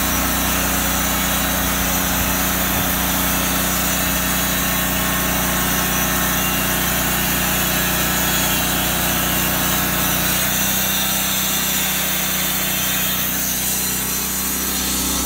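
Wood-Mizer portable bandsaw mill running steadily under load, its band blade sawing a 1x8 board off a cant.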